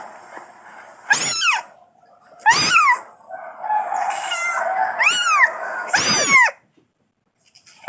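Angora kitten meowing four times, high-pitched calls that rise and fall: a kitten crying for its mother.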